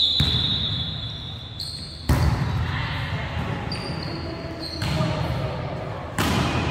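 Indoor volleyball match in an echoing gym: ball strikes and the mixed voices of players and onlookers, with sudden rises in noise about two, five and six seconds in.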